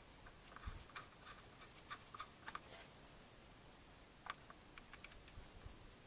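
Faint, scattered light clicks and ticks of hand tools and small engine parts being handled, against near silence. They come in a cluster over the first three seconds and again around four to five seconds in.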